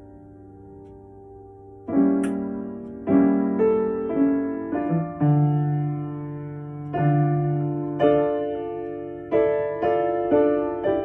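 Slow, gentle piano improvisation: a held chord fades for about two seconds, then notes and chords are struck roughly once a second, each ringing and dying away.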